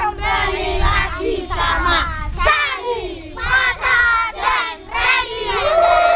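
A group of children chanting together in unison, a loud group call with their voices overlapping. Near the end they hold one long note.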